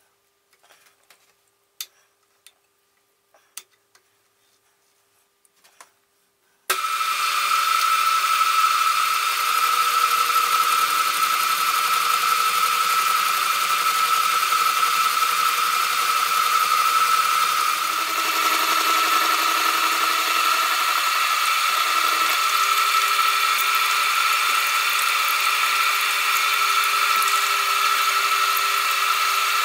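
A few faint clicks, then about seven seconds in a Deckel FP1 milling machine comes in suddenly and runs steadily with a high whine, its horizontal arbor driving a gear cutter that cuts teeth in a gear blank under coolant.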